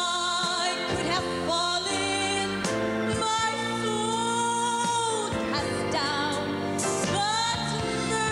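A woman singing a gospel song solo into a microphone over instrumental backing, holding long notes with vibrato between short breaths.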